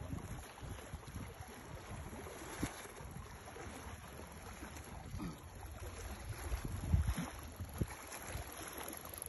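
Wind rumbling on a phone microphone at the water's edge, with a few soft knocks of handling about a third of the way in and again near the end.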